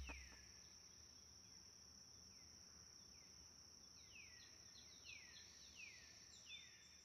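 Very faint nature ambience: a steady high insect drone, with a bird giving short falling chirps about once a second, more often in the second half.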